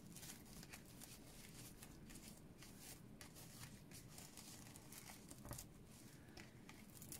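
Very faint rustling and crinkling as a ribbon is worked around a paper card to tie a bow, with many small irregular scrapes.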